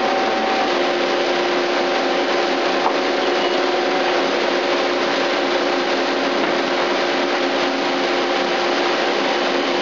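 Daewoo Puma 10HC CNC lathe running: a steady, even hiss with several held hum tones under it, the machine and its ancillary equipment running with no cutting heard.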